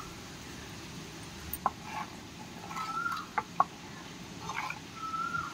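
A metal ladle clinks sharply a few times against a clay pot as curry is stirred, with faint short bird calls now and then.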